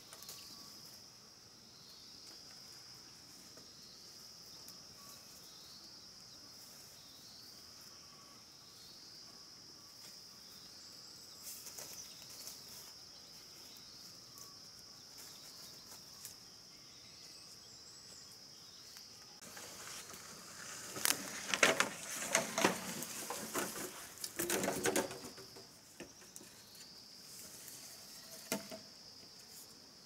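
Steady high-pitched insect chirring in the countryside, with a faint repeating chirp about once a second. From about 20 to 26 seconds in, a louder run of knocks and clatter from handling or work rises over it.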